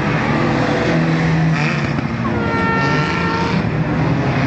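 Several banger racing cars' engines running together at race speed, a mix of engine notes rising and falling as the cars accelerate and lift off, louder for a couple of seconds in the middle.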